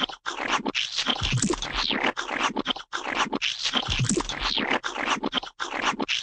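Gooey splat sound effects: a dense run of wet squelches and splats, broken by a few brief gaps.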